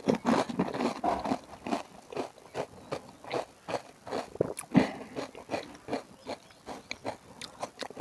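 Close-miked chewing of pani puri: the crisp fried puri shells crunching between the teeth in a quick run of short crunches, several a second.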